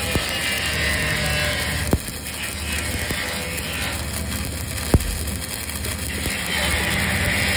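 Stick-welding arc burning a 6010 (Fleetweld 5P) electrode on a vertical weld: a steady crackling sizzle, with a few sharp pops, one about two seconds in and another near five seconds.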